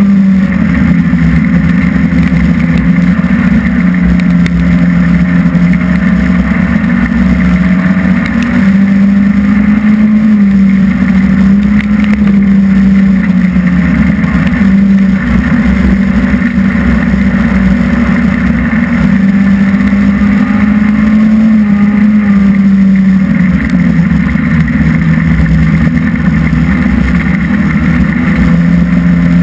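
Hobby stock race car engine running hard under racing load, heard loud from inside the cockpit. Its pitch climbs and drops again every few seconds as the throttle is worked on and off around the dirt oval.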